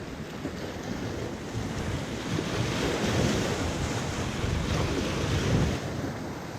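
Wind buffeting the microphone, with waves washing in underneath; the rumble swells about three seconds in and again near the end.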